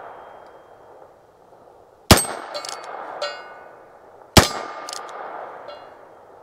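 Heritage Barkeep Boot .22 single-action revolver firing .22 LR: two sharp shots about two seconds apart, the first about two seconds in. Each crack rings out and is followed by a few fainter, sharp echoes.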